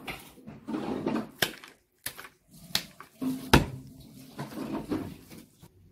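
Ground meat and chopped onion being kneaded by hand in thin plastic gloves in a plastic bowl: irregular wet squelching and squishing with a few sharp slaps, the loudest about three and a half seconds in.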